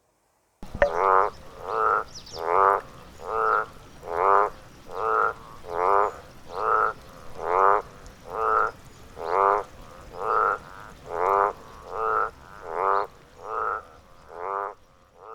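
Frog croaking: a regular series of about seventeen short croaks, a little more than one a second, starting just under a second in.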